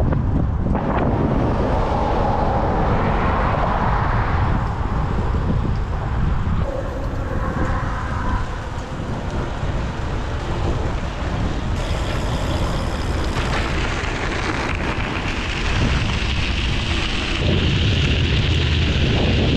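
Wind buffeting the microphone of a camera riding low on a moving folding e-bike, over the rolling noise of its tyres. Near the end a brighter hiss comes in as the tyres run onto gravel.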